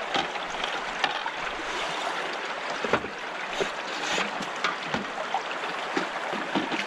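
Shallow river current running steadily past an aluminium boat, with a few short splashes and knocks as a hooked fish thrashes at the surface beside the hull.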